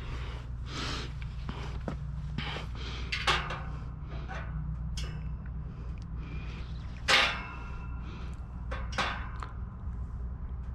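Metal clicks, knocks and scrapes of a drill bit being handled and fitted into a Drill Doctor 350X sharpener, over a steady low hum. The loudest knocks come about three seconds in and about seven seconds in, with another near nine seconds.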